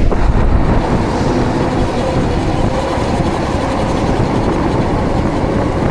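Steady wind rush on the microphone mixed with tyre noise while riding a Ridstar Q20 electric bike on a wet road.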